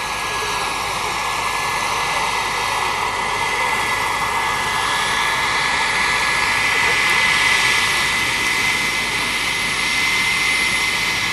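Turbine engine of a radio-controlled scale Bell 412 model helicopter running steadily as it flies low and sets down, a high whine over a wide rushing hiss, growing a little louder about two thirds of the way in.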